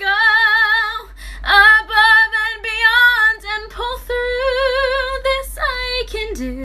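A high female voice singing long held notes with a wide, regular vibrato, separated by short breaks. It drops to a lower note near the end.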